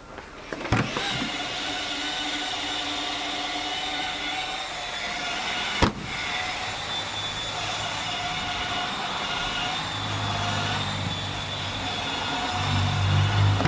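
A Mercedes-Benz car's engine starting with a click about a second in, then running steadily, with another sharp click about halfway through.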